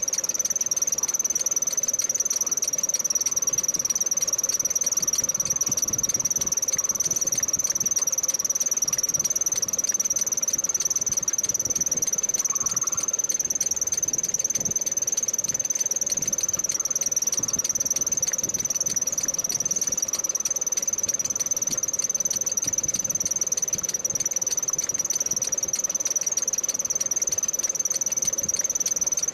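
Metal lathe turning a steel rotavator axle, with a steady high-pitched squeal over the machine's running noise.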